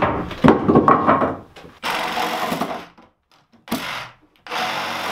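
Wooden knocks and clatter for the first second or so, then a cordless reciprocating saw cutting through 2x4 stubs fixed to the wall: one short cut, a brief blip, and from near the end a steady run.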